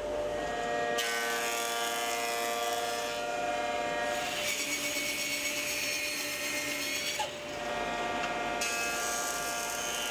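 Woodworking machines cutting wood: the Kity 636 combination planer planing a board, with a bandsaw cut in the middle. The sound changes abruptly several times from one cut to the next. Each cut is a steady motor whine under the cutting noise.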